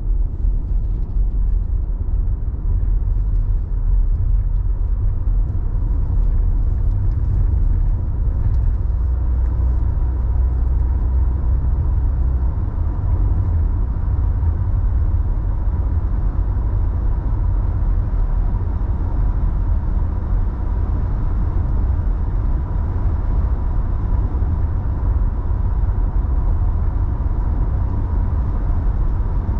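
Steady low rumble of a car driving at road speed, tyre and engine noise heard from inside the cabin, with a faint steady high hum.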